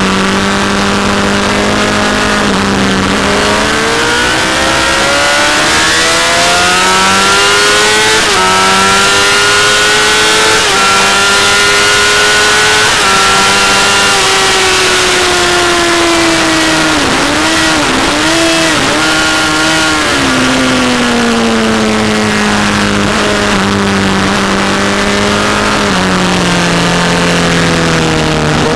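Honda CBR1000 inline-four sportbike engine heard from on board at full throttle: revs climb for about ten seconds with a couple of quick steps at the upshifts, then fall under braking with three or four sharp throttle blips on the downshifts, before it pulls through the corner and rises again near the end. Wind rushes over the bike throughout.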